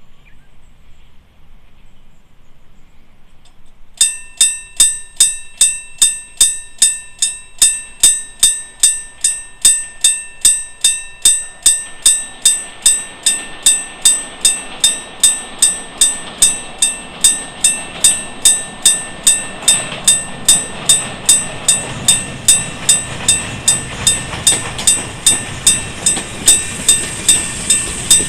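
Japanese railway level crossing warning bell starting suddenly about four seconds in and ringing a steady, high, clanging tone about twice a second. From about the middle, the running noise of an approaching Jōmō Electric Railway train grows louder beneath the bell.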